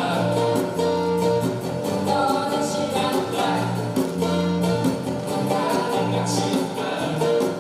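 Small acoustic band playing a song live: strummed acoustic guitars, bass and djembe, with several voices singing together over them.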